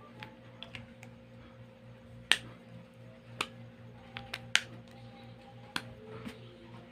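A series of short, sharp clicks and taps at irregular intervals, about ten in all, the loudest a little past two seconds in, over a faint steady hum.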